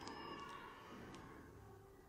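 Very faint pencil sounds on drawing paper: a few light ticks in the first second or so over a soft haze, which fades away in the second half.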